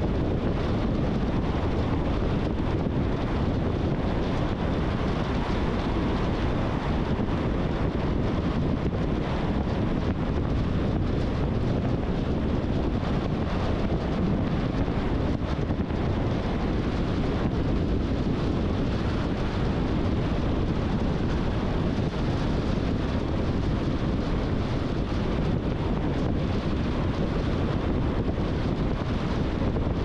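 Steady rush of tyre and wind noise from a car cruising at freeway speed, with no distinct events.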